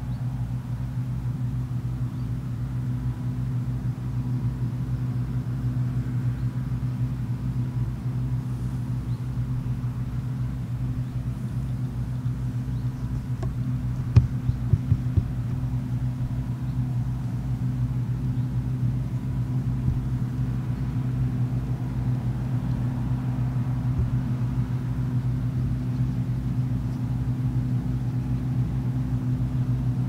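John Deere 1188 combine harvester cutting standing wheat: its diesel engine and threshing gear make a steady drone with a fast low pulse, slowly growing louder as it comes closer. A few brief knocks come about halfway through.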